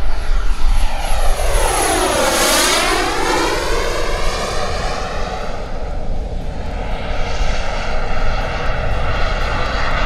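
EvoJet 220 turbine of a BVM Renegade model jet running in flight. Its high whine drops in pitch about a second and a half in as the jet passes, and the rush sweeps down and back up in tone. It then settles into a steady turbine rush as the jet climbs away.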